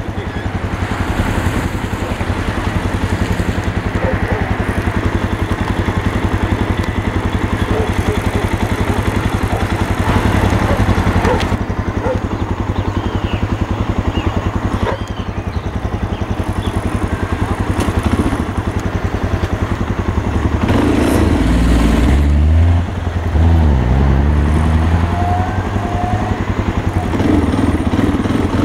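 A vehicle's engine running steadily while under way, heard from on board. About three quarters of the way through its pitch drops and climbs again a couple of times as the vehicle slows and picks up speed.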